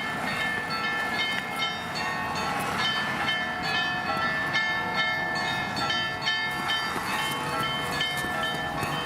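Church bells pealing: several bells of different pitches struck over and over in a quick, overlapping pattern, several strokes a second, each note ringing on.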